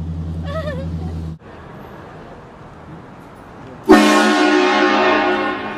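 A car-mounted train horn blasts once, starting abruptly about four seconds in: a loud chord of several notes held for about two seconds. Before it, a low steady hum cuts off sharply about a second and a half in.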